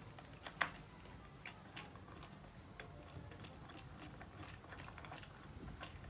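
Small screwdriver turning a screw in the plastic battery-compartment lid of a toy RC stunt car: faint scattered clicks and ticks, with one sharper click about half a second in.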